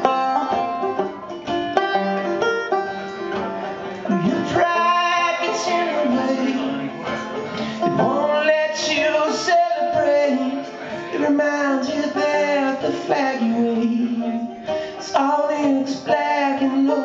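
Banjo picked in a steady rhythm, with a man singing over it from about four seconds in.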